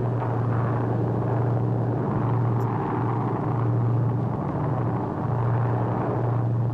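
Steady, low drone of a B-29 Superfortress's four radial piston engines in cruising flight, swelling and easing slightly.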